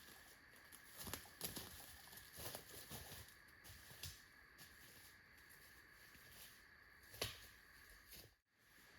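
Faint, irregular footsteps through dry leaf litter and twigs on a forest floor, crackling and rustling, with one sharper snap a little after seven seconds.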